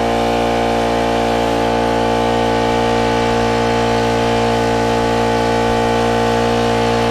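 Honda gasoline water pump's small four-stroke engine running at a steady, unchanging speed while it pumps water from a tank out to a hose.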